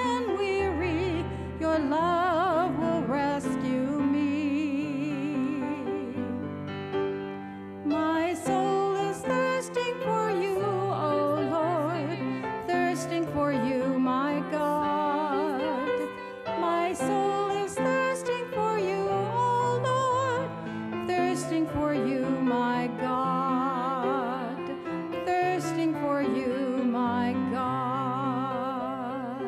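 A woman cantor singing the responsorial psalm with a strong vibrato, accompanied by a grand piano.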